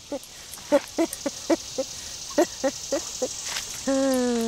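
Domestic cat meowing as it walks: a run of short, quick chirp-like mews, then one longer meow about four seconds in that falls slightly in pitch.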